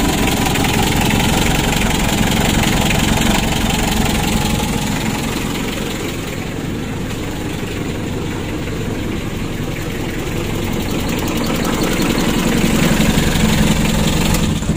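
Mitsubishi L300 four-cylinder diesel engine idling rough and shaking, then switched off right at the end. The engine is worn out: heavy blow-by and a severe compression leak into the radiator, bad enough that the mechanic judges it needs an engine overhaul.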